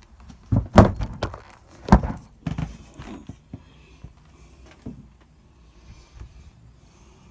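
A run of knocks and thumps, loudest about two seconds in, as a white box-shaped cabin panel is handled and moved.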